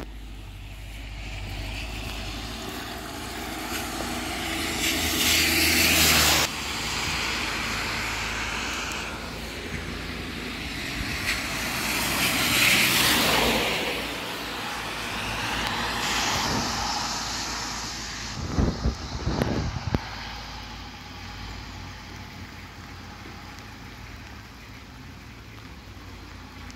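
Cars passing on a rain-soaked road, their tyres hissing through standing water, the noise swelling and fading three times. A short cluster of knocks comes about three-quarters through, and then a quieter steady hiss of rain.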